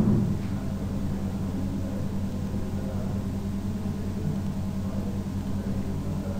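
Steady low hum with a faint hiss, unchanging throughout: background room tone.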